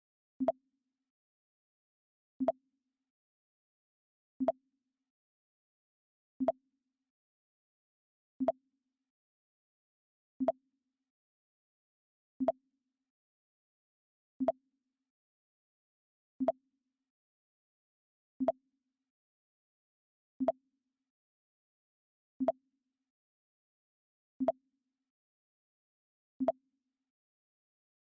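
The Mac OS X 'Pong' sound effect repeating every two seconds: each time a short pong with a brief low tone and a higher one above it, fourteen in all, with silence between.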